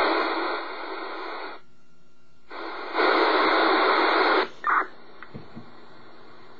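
Radio receiver static: band-limited hiss between transmissions that comes and goes in abrupt blocks, cutting off sharply about four and a half seconds in. A brief burst of noise follows the cutoff.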